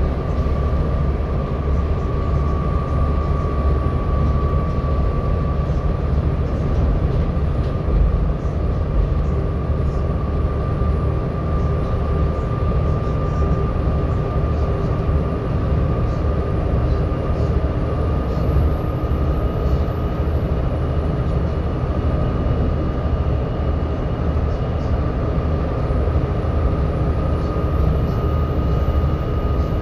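Volvo B7TL double-decker bus heard from inside the lower deck: its six-cylinder diesel engine runs with a steady low rumble while the radiator cooling fan gives a constant high whine over it.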